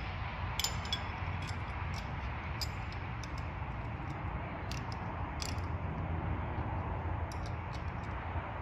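Faint, scattered light clicks and taps of a small steel rod and metal clamp parts being handled, over a steady low background hum.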